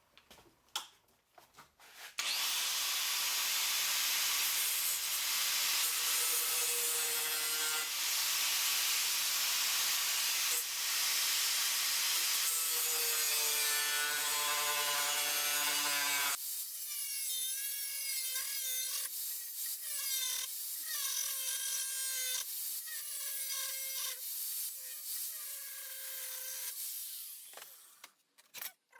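Angle grinder grinding the corner off a piece of steel angle iron. It starts about two seconds in with a loud, steady grinding hiss over the motor hum. After about 16 s the grinding noise drops and the motor's whine wavers up and down until it stops near the end.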